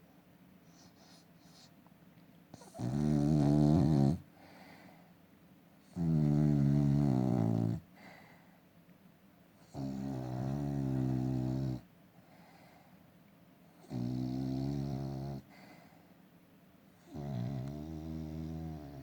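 Sleeping dog snoring in a slow, even rhythm: five long, pitched snores, one about every four seconds, with quiet gaps between them.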